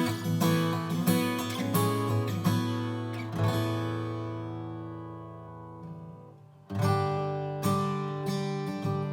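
Martin OM-28 acoustic guitar playing chords: several chords in quick succession, then one chord left ringing and fading for about three seconds before strumming picks up again.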